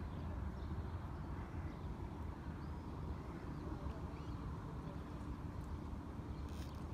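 Outdoor city ambience: a steady low rumble of distant traffic, with a few faint bird chirps and a short tick near the end.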